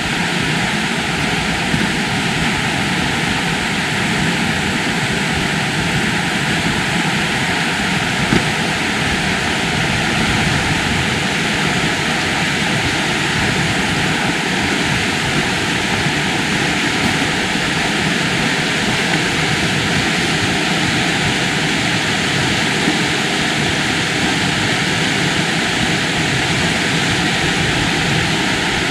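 Steady rushing of the River Wharfe, an even hiss of fast-flowing water with no change in strength.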